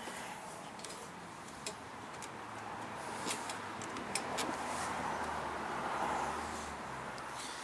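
A passing vehicle whose noise swells to a peak about six seconds in and fades. Over it are scattered sharp metallic clicks and taps from hand tools and carburetor parts being handled on the mower's Kohler engine.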